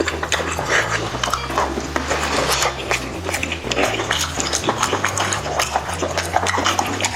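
Close-miked chewing and lip-smacking while eating chicken: a dense run of quick wet clicks and smacks.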